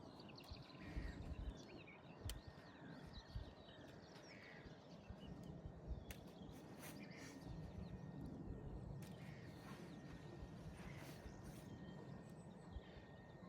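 Faint birdsong over a low wind rumble, with a few sharp clicks and rustles of tent clips being snapped onto the poles.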